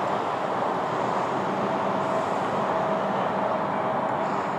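Douglas DC-3's twin Pratt & Whitney R-1830 radial engines running with a steady, distant drone, with a faint held tone joining in the middle.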